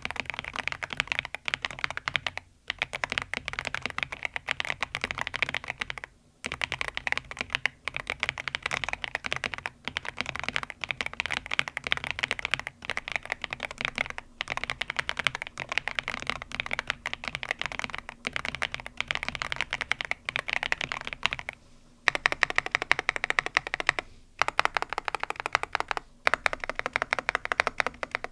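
Fast, continuous typing on a YUNZII B87 tenkeyless mechanical keyboard with rounded MOA-profile keycaps, broken by short pauses every few seconds. After a pause about three quarters of the way in, the keystrokes come louder and sharper.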